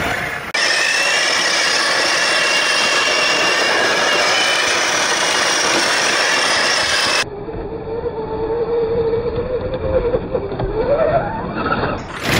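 Electric RC rally car with a 2200 kV brushless motor, driving on a dirt track. For most of the first half there is a loud, steady rushing noise with a high whine held over it. After an abrupt change, a lower motor whine holds steady and then rises in pitch near the end as the car speeds up, over the crunch of tyres on dirt.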